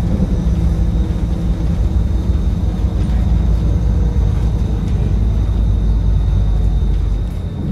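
Transperth bus's diesel engine and ZF Ecomat automatic transmission pulling the bus along, heard from inside the passenger cabin: a loud, deep, steady drone with a thin constant high tone above it.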